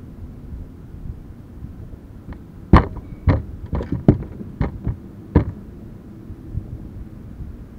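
A just-landed bass flopping and knocking against the boat's deck: about seven sharp thumps packed into two and a half seconds, over a low steady rumble.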